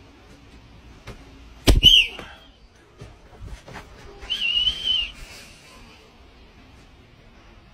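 A sharp snap, as a stretched rubber band is released against a thigh, about two seconds in, with a short high whistle-like tone right after it. A second, steadier high whistle-like tone follows a couple of seconds later and lasts under a second.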